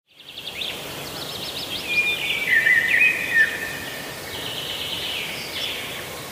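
Birds singing and chirping over a steady outdoor hiss, fading in from silence: quick trills and short gliding whistled notes, busiest about two to three seconds in.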